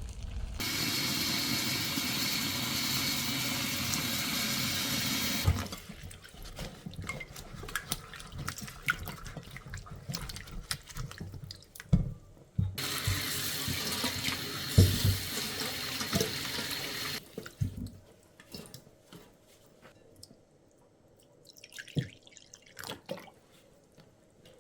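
Kitchen tap running into a sink for about five seconds, then knocks and clicks of things being handled, then the tap running again for about four seconds, followed by a few more soft knocks.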